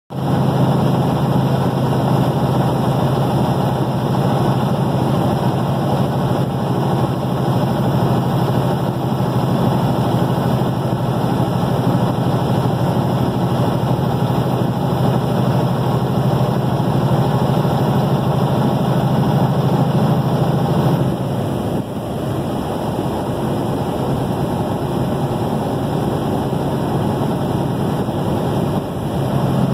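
Steady engine and road noise heard inside a moving vehicle at highway speed, with a low drone that drops away about two-thirds of the way through and comes back near the end.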